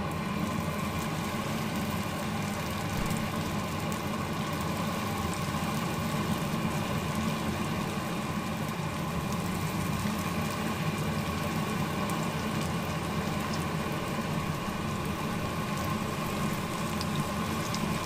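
Coated banana fritters (pisang goreng) frying in hot oil in a pan, a steady dense sizzle with fine crackling.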